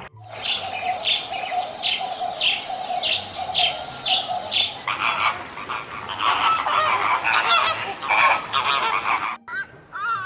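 Domestic waterfowl calling: honk-like calls repeated about twice a second, then several birds calling over one another from about five seconds in, cut off suddenly near the end.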